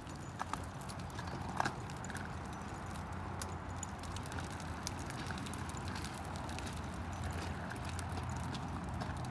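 Collapsible folding wagon rolling along a concrete sidewalk: a steady rumble from its wheels with scattered clicks and clacks, a few sharper ones near the start.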